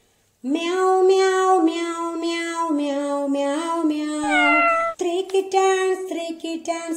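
A cartoon kitten's high voice singing drawn-out meows on held notes that step up and down in pitch, with a falling glide a little before the middle. From about five seconds in come shorter, choppier meows.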